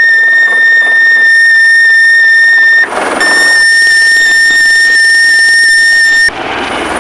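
HyperSpike HS-14 long-range acoustic hailing device sounding its built-in alert tone. It is a loud, steady, piercing high tone in two long blasts of about three seconds each, with a short break between them, cutting off suddenly near the end.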